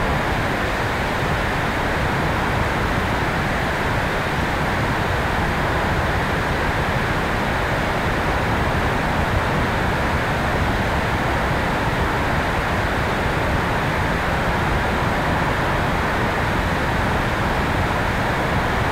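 Steady, even rush of wind noise from the airflow over the tail-mounted camera of an electric RC airplane in flight.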